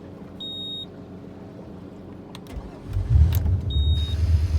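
A short high beep as the ignition is switched on, then the boat's engine starts about three seconds in and runs on steadily and loudly, with another short beep soon after it catches.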